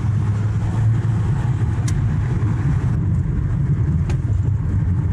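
Steady engine and road noise inside a moving Mitsubishi car's cabin: a low rumble with tyre hiss over it, the car driving at a steady pace.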